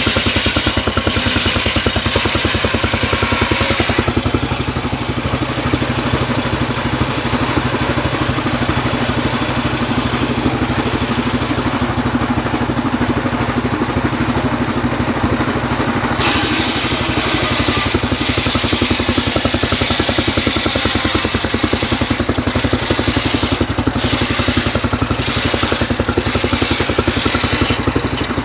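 Engine-driven homemade circular sawmill ripping a rain tree (trembesi) log lengthwise. The engine runs steadily throughout. The blade's cutting noise is heavy at first, eases for about twelve seconds while the log is moved, then comes back strong for the rest.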